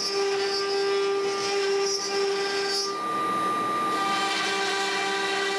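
ShopBot Desktop CNC router's spindle running with a steady whine while the bit carves a white oak sign, with cutting hiss on top. The tone shifts slightly about three seconds in.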